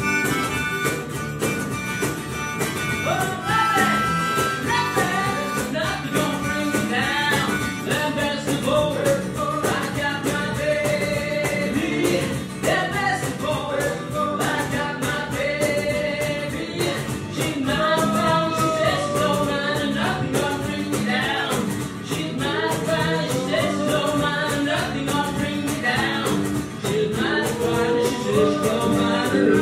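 Band music: a male voice singing a melody over guitar and bass accompaniment.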